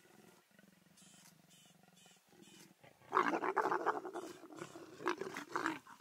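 A pair of leopards growling loudly while mating, a rough snarling growl that starts about halfway through and lasts nearly three seconds.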